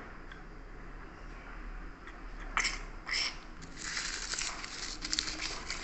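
Slime being squished and pressed by hand: two short squelches about two and a half and three seconds in, then a run of crackling, popping clicks.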